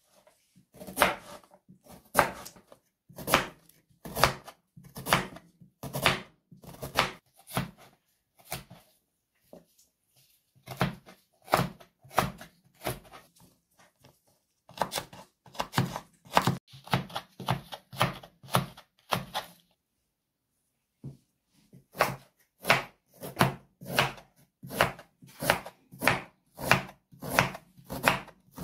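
Crinkle-cut knife slicing carrots on a wooden cutting board: a steady run of sharp chops, about one or two a second, each blade knocking on the board. The chopping thins out about a third of the way in and stops briefly near the two-thirds mark.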